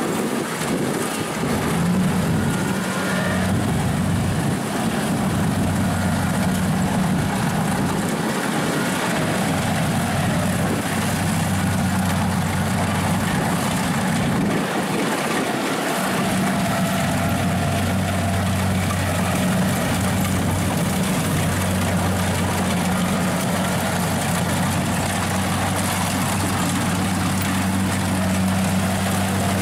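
Kubota DC-70 combine harvester's diesel engine running steadily as it cuts and threshes rice, a low even hum with machinery noise over it.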